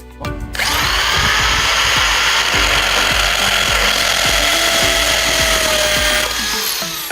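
Electric drill running steadily for about five and a half seconds, starting about half a second in and winding down near the end, with music playing faintly underneath.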